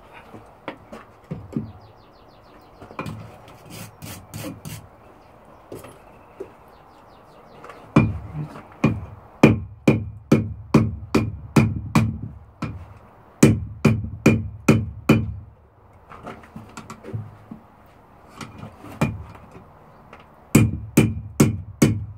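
Hand hammer striking a steel bar laid over the anvil horn to bend it into a curve, in runs of quick blows about two to three a second, each with a bright metallic ring. Lighter knocks come first, then a long run of blows, a pause, and a second run near the end.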